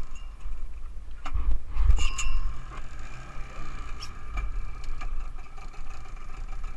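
A 30 hp outboard motor idling steadily, with wind buffeting the microphone in gusts.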